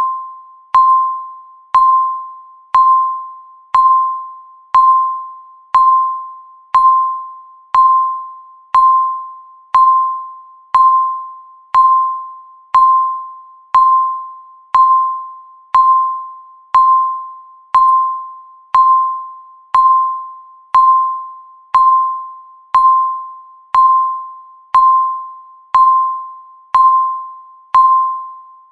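Countdown timer's electronic beep sounding once every second: a single tone with a sharp start that fades away before the next one.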